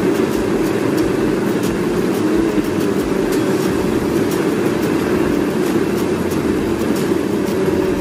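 A machine running steadily, with faint irregular clicks over the hum.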